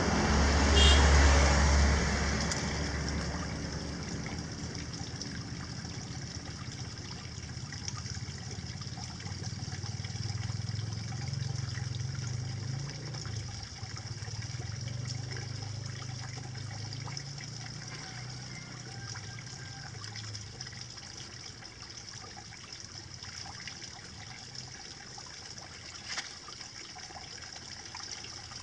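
Water running and trickling steadily, with a louder low rumble in the first two seconds.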